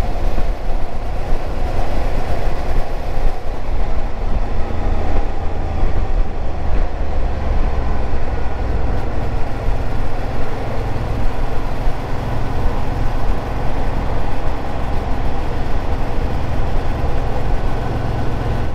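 Suzuki motorcycle being ridden at city speed: the engine running under a steady rush of wind on the microphone, with a heavy low rumble.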